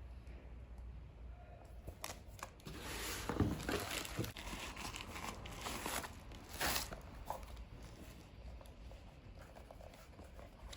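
Packaging crinkling and tearing as a parcel is unwrapped by hand, with a burst of rustling and crackling from about two to seven seconds in.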